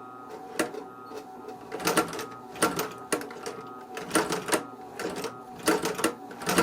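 Industrial leather sewing machine stitching in several short bursts: quick runs of needle clatter over the steady hum of its motor. This is a test run after the bobbin tension has been adjusted.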